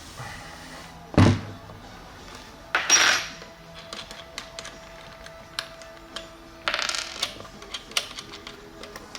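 Small metal parts clinking and knocking on a workbench: a sharp knock about a second in, another near three seconds, and a quick run of clinks around seven seconds, over faint background music.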